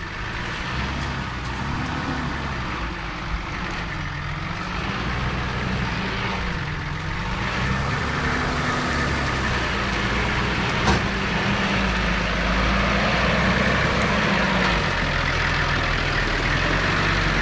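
Off-road 4x4's engine running at low revs while it crawls the vehicle over a rough trail obstacle, its pitch wavering up and down with the throttle and slowly growing louder. A short knock comes about eleven seconds in.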